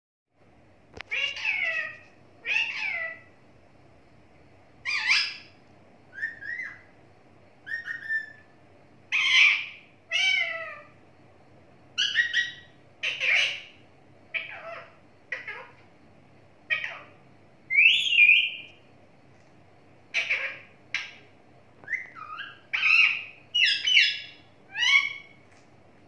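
Rose-ringed (Indian ringneck) parakeet calling repeatedly: a string of about twenty short, high calls, a second or two apart.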